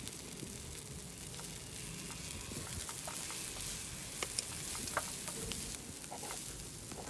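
Hot oil sizzling in a miniature steel kadai on an electric hot plate: a steady hiss with a few small pops and clicks about four to six seconds in.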